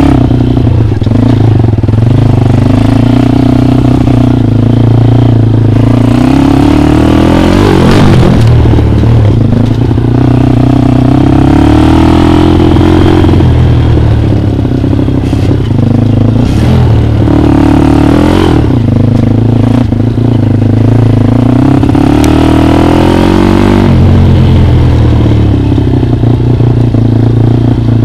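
Dirt bike engine running loud and close, its pitch climbing and dropping again and again as the rider accelerates and eases off.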